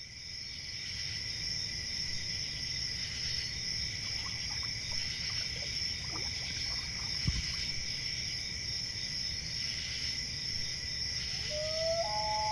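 A chorus of crickets trilling steadily and high. Near the end a long wailing call rises in pitch and then holds, typical of a common loon on the lake.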